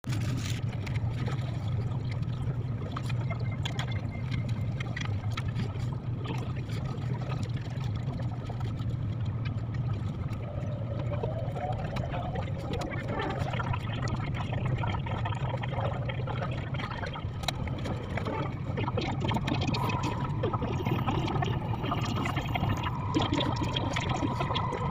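Sped-up cabin noise of a Taiwan High Speed Rail 700T train pulling away and gathering speed: a steady low rumble crowded with rapid clicks, with a rising whine from the traction motors about ten seconds in and a held whine near the end.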